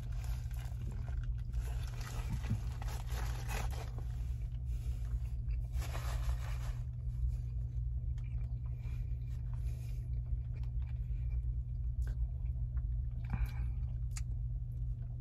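Biting into and chewing a bacon cheeseburger, with the rustle and crinkle of its paper wrapper in a few short bursts. A steady low hum runs underneath.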